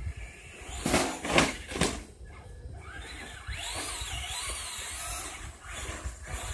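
Traxxas Slash RC truck's motor whining, its pitch rising and falling with the throttle as it drives over dirt, after a few short loud bursts of noise about a second in.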